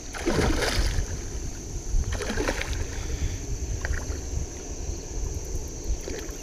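A hooked common carp splashing and thrashing at the water's surface close to the bank, with two louder splashes in the first three seconds.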